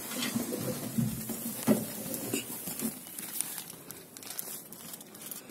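Rustling and handling noise from clothing and a hand-held phone, with a few light knocks, as someone climbs down out of a truck cab.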